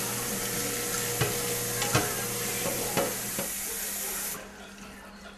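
Kitchen tap running into a sink during dishwashing, with a few sharp clinks of dishes. The water shuts off about four seconds in.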